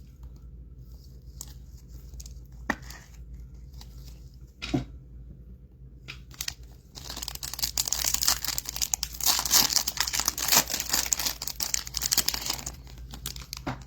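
Foil trading-card pack wrapper being torn open and crinkled: a few scattered taps and rustles at first, then a dense crackling run from about seven seconds in until just before the end.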